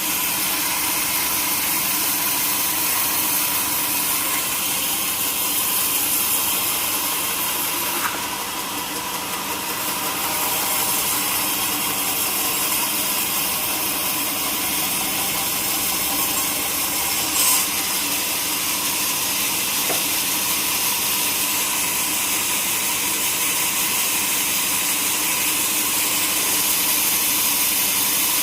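Sawmill saw running through a log: a steady hissing cut over a machine hum, dipping briefly about eight seconds in, with a short sharp click about seventeen seconds in.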